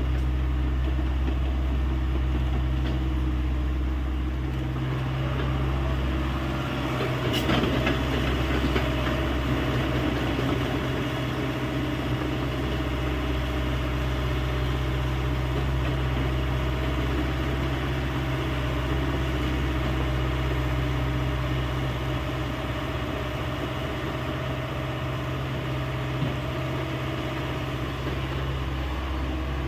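Diesel engine of a Hyundai 85A excavator running steadily, with one sharp click about seven seconds in.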